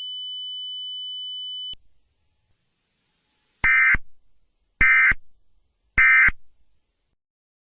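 A steady high electronic tone stops abruptly, and after a pause three short, identical buzzing data bursts sound about a second apart: the Emergency Alert System end-of-message (EOM) code, sent three times to mark the end of the alert.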